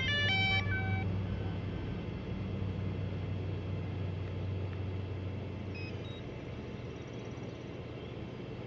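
DJI Phantom 4 Pro drone giving a quick tune of electronic beeps in the first second, typical of its power-on tones, followed by a steady low hum, with a few faint beeps about six seconds in.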